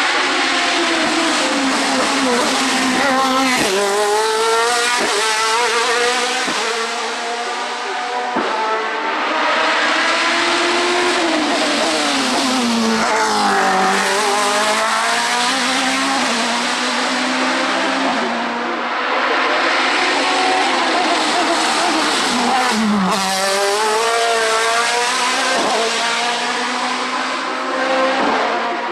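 Hill climb race car engines at full throttle: the engine note climbs again and again through upshifts and drops steeply on braking downshifts, with sharp cracks at the gear changes.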